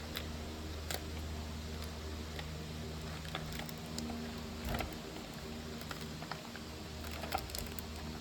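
Scattered light plastic clicks and taps of clear polycarbonate keycaps being handled and pressed onto keyboard switches, over a steady low hum.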